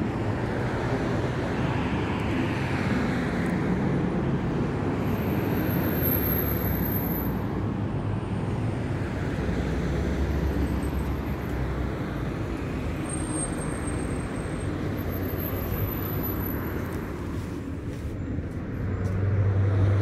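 Road traffic: a steady rush of passing car noise that swells and eases.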